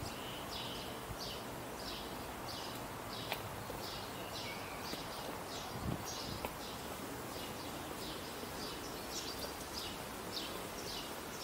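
A bird chirping over and over in short, evenly spaced notes, about two a second, over a steady outdoor background hiss.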